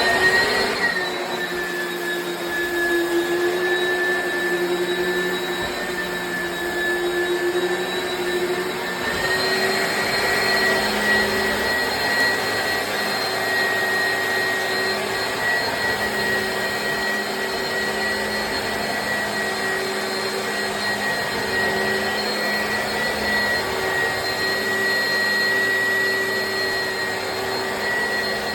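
Oreck Commercial XL bagged upright vacuum cleaner running steadily, its motor giving a high whine over a broad rush of air. Its pitch rises slightly about nine seconds in.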